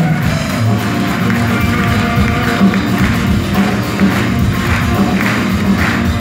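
Live band music heard from the audience, with sustained notes over a regular percussion beat of about two strokes a second.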